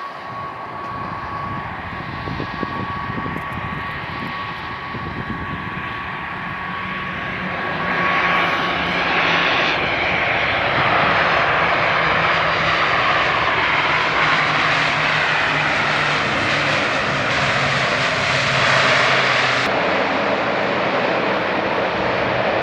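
Airliner engines running, with a steady high whine that fades about ten seconds in; the engine sound grows louder about eight seconds in and then holds.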